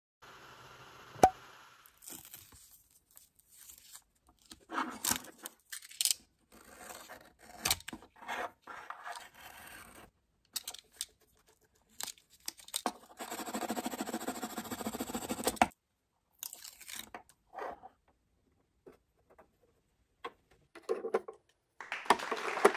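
Hands working a small 3D-printed plastic part: a sharp click about a second in, then scattered clicks and crunching scrapes, with a steadier scraping stretch of about two and a half seconds in the middle.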